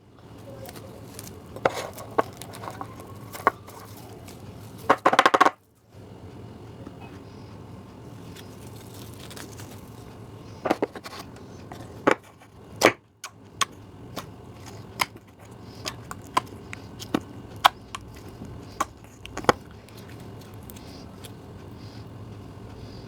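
Homemade soap slime being squeezed and handled, giving scattered sharp pops and clicks, with a short louder crackling burst about five seconds in.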